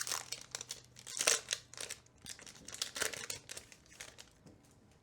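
Foil booster pack wrapper crinkling and tearing open in a few crackly bursts, the loudest just after a second in, dying away near the end.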